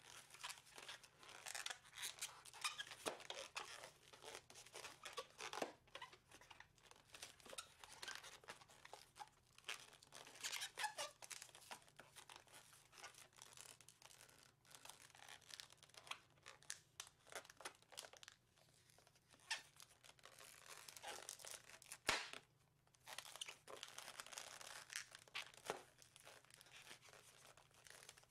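Inflated 260 latex modeling balloon squeaking and rubbing under the fingers as it is twisted and bent, in irregular bursts, with one sharp click about three-quarters of the way through.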